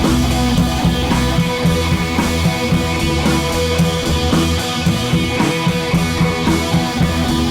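Background rock music with drums and electric guitar and a steady beat.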